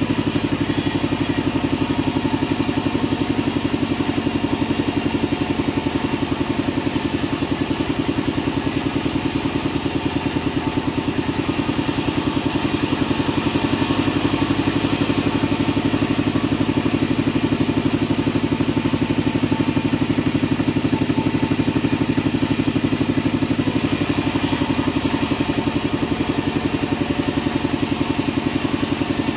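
Band sawmill machine running steadily, a constant engine-like drone with a fast, even throb and no let-up.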